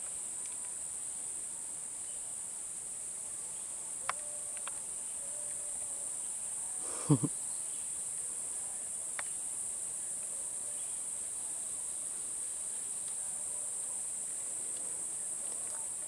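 A steady, high-pitched insect drone throughout, with a sharp thump about seven seconds in and a couple of faint clicks.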